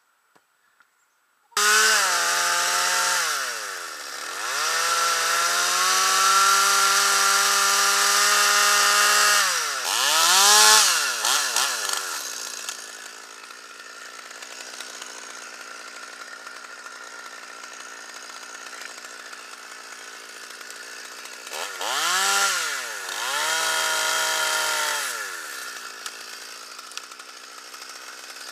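Stihl 200T top-handle two-stroke chainsaw running at full throttle while cutting deadwood, its pitch sagging and recovering under load, then dropping to a steady idle after about twelve seconds. A second short burst of revving with a dip comes a little past the middle, and then it idles again.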